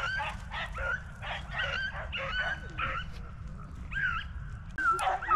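Hunting beagles baying and yelping in a quick run of short, high calls, then, after a brief pause, louder drawn-out bays near the end.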